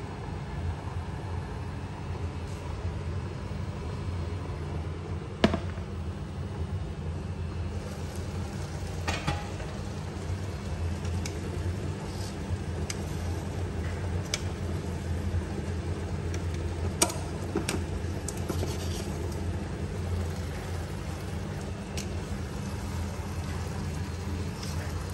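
Induction cooktop running with a steady low hum. A few sharp clicks and knocks of kitchenware come over it, the loudest about five seconds in and another around seventeen seconds.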